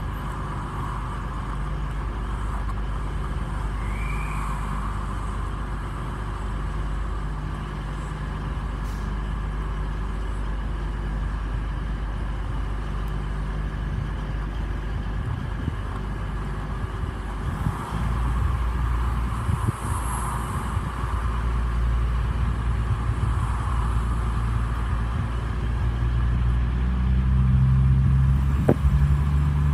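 Diesel locomotive engines running, a steady low drone that grows louder about eighteen seconds in and again near the end.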